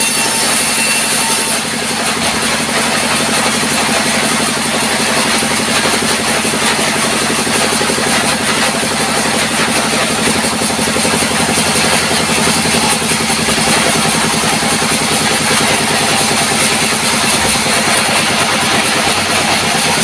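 Sawmill band saw running with a steady, loud mechanical drone as wood is fed through it. A bright high hiss of the blade cutting through a plank stops about a second and a half in, and the saw runs on.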